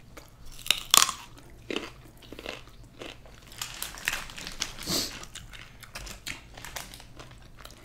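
Close-miked biting and chewing of crunchy fried chicken and sides: a string of crunches and wet mouth clicks, loudest about a second in and again near five seconds.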